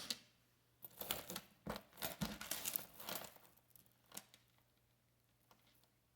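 A tangle of costume jewelry being handled and pulled apart: irregular rustling and light clicks of beads and chains. There is a sharp click at the start as a piece is set down, and the handling stops for the last second and a half or so.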